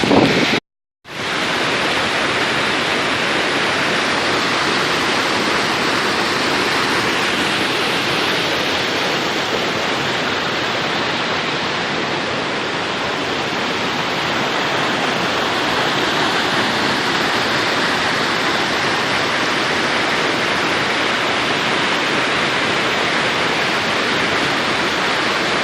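Steady roar of falling water from a tall waterfall, an even rush with no breaks. It cuts out briefly just under a second in, then comes back at the same level.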